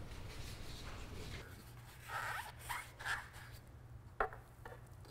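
Paper towel rubbing and wiping against engine parts under the hood: a few short rasping strokes, then a couple of light knocks.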